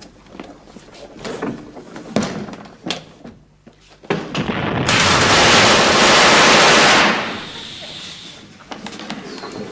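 A long burst of Tommy-gun fire, about two seconds, starting about five seconds in and cutting off sharply. Before it come a few soft knocks.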